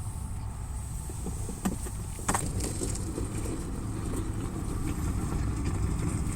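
Campfire burning: a couple of sharp crackles and a few faint snaps over a steady low rumble.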